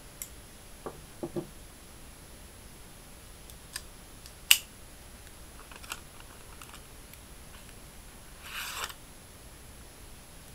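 Knives being handled: a few light taps and clicks, one sharp metallic click about halfway through, and a brief scrape near the end.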